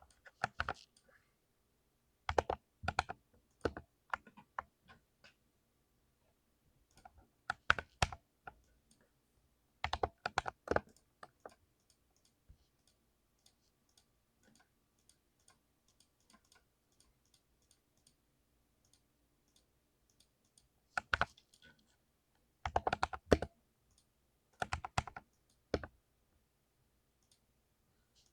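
Mechanical keyboard with lubed Cherry MX Silver linear switches being typed on fast, in short bursts of rapid keystrokes. The bursts are separated by pauses with only an occasional faint single tick, including a long lull in the middle.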